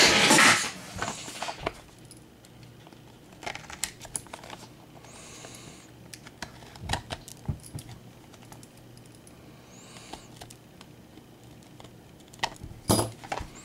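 Fingers handling and opening a small sealed trading-card box: scattered light clicks and taps, with short rustling bursts. The loudest burst comes right at the start, and there are others about five seconds in and near the end.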